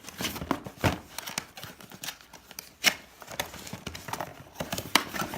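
Boxed parts and packaging being handled and unpacked: irregular knocks and clicks with light rustling, the sharpest click about three seconds in and another near the end.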